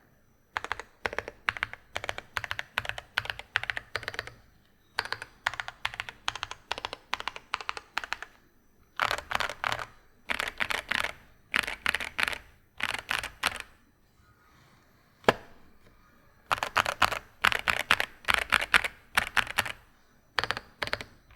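Typing on an Epomaker Split 65 mechanical keyboard with stock Epomaker Flamingo linear switches, PBT Cherry-profile keycaps and a foam-filled, top-mounted PC-plate build. The keystrokes come in quick runs of one to two seconds with short pauses between them, and there is one single loud keypress about fifteen seconds in.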